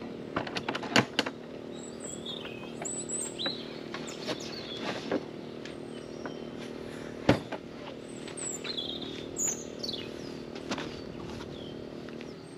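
Small birds chirping over a steady low mechanical hum, with a few sharp clicks and knocks, the loudest about a second in and again past seven seconds.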